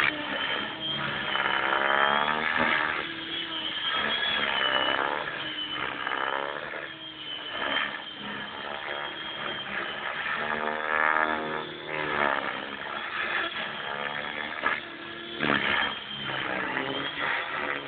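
Align T-Rex 600 radio-controlled helicopter flying 3D aerobatics. Its high rotor-drive whine keeps rising and falling in pitch as it swoops and changes speed, with brief louder swishes as it passes close.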